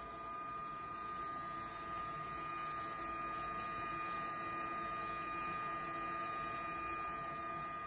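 Steady hum with a constant high whine, as from a small machine or electrical device running.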